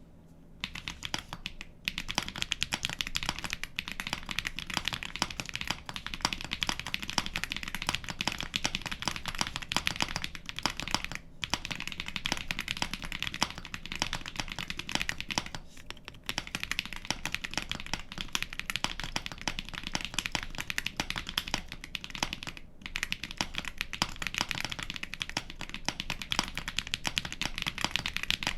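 Fast typing test on a Space65 mechanical keyboard fitted with budget Akko Lavender tactile switches and TOKEY ABS SA-profile keycaps: a dense, continuous clatter of keystrokes with a few short pauses.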